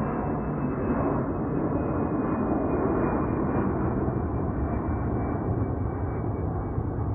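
Jet airliner passing low overhead: a loud, steady engine roar with a faint high whine that slowly falls in pitch.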